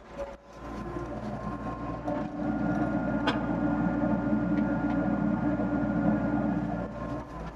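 Doosan DX55 mini excavator running and working. The engine and hydraulics grow louder and heavier about two seconds in, as under load, and ease off again near the end. There is one sharp click about three seconds in.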